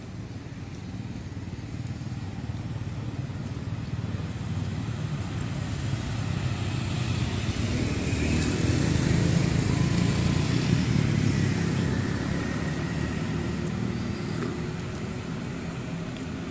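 A motor vehicle passing on a road, its engine and tyre noise swelling slowly to its loudest about nine to eleven seconds in, then fading away.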